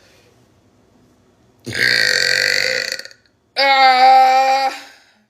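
A person burping loudly twice. The first burp, about two seconds in, is rough and lasts over a second; the second follows after a short gap and is a steady, clearly pitched belch.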